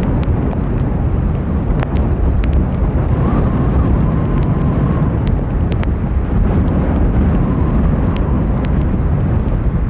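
Boeing 787-8's Rolls-Royce Trent 1000 jet engines running at taxi power: a steady low rumble with a faint wavering whine in the middle. Strong wind buffets the microphone, and rain makes scattered sharp ticks.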